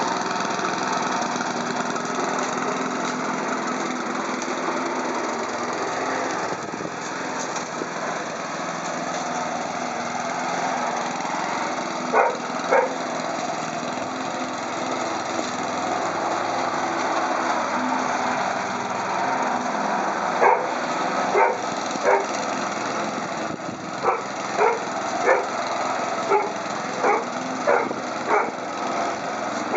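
Newfoundland puppy barking: two short barks around the middle, then a run of repeated barks, about one every second, through the last third. A steady engine drone like a lawn mower runs underneath.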